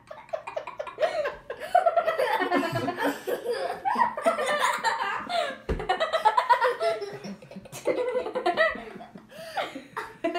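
A young boy laughing hard in repeated fits, with a single thump about halfway through.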